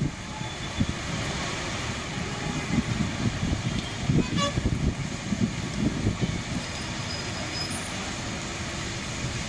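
Road traffic running steadily, with a brief vehicle horn toot about four and a half seconds in.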